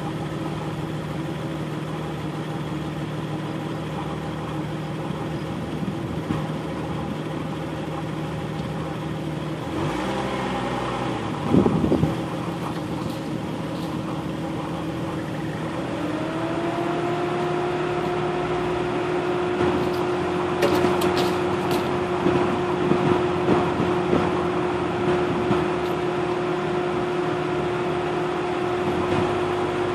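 A vehicle's engine running steadily while driving slowly over a rough dirt trail, a constant hum that climbs to a higher steady pitch a little past the middle and holds there. A couple of loud thumps come near the middle, and clicks and rattles from bumps follow later.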